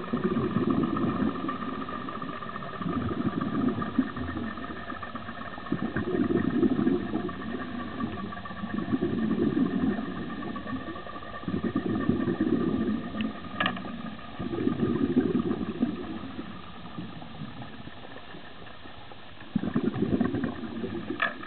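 Underwater ambient noise picked up by the camera: low rumbling swells that rise and fall every two to three seconds over a faint steady hum. A sharp click comes about two-thirds of the way through, and another near the end.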